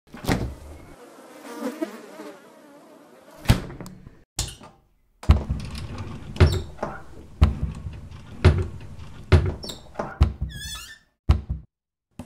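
Animated-film sound effects: a run of heavy thuds roughly a second apart, with a brief warbling squeal near the end.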